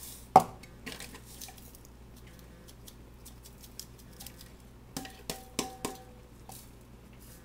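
Breadcrumb canister held upside down and shaken over a measuring cup, crumbs pattering in with scattered taps and knocks. A sharp knock about half a second in is the loudest sound, and a few more knocks with a short ring come around five to six seconds in.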